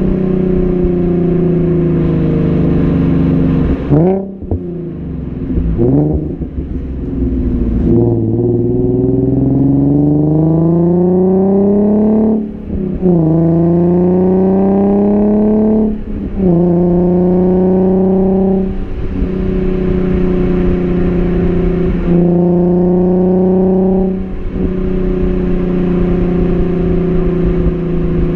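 Nissan 370Z's VQ37HR 3.7-litre V6 heard at the tailpipe through a Motordyne Shockwave cat-back exhaust with a deep tone, under way. The note first falls, then twice climbs steadily in pitch and drops sharply as the car pulls through the gears and upshifts. In the second half it holds a steady drone at cruise.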